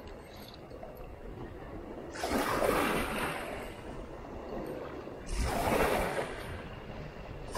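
Small waves washing against the rocks of a groyne, surging twice a few seconds apart.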